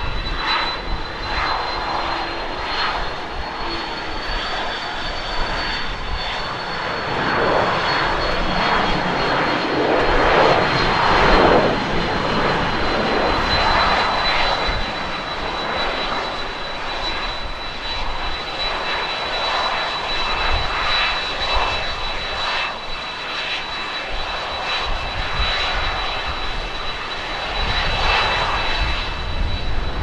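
Boeing 737-800's CFM56-7B jet engines during the landing roll: a steady rushing noise under a high, steady whine. The rush swells louder for a few seconds about eight to twelve seconds in, then settles. Gusty wind rumbles on the microphone underneath.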